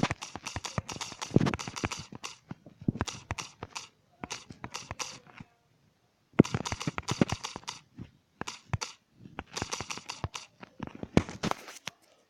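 Rapid runs of sharp clicks and taps, typing on a phone keyboard, in bursts of a second or two with brief pauses between.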